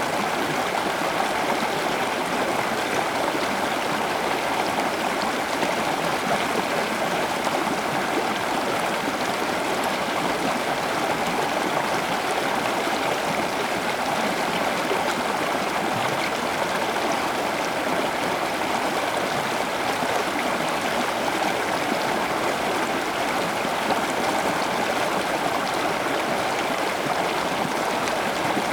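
Steady, unbroken rush of running water, like a stream.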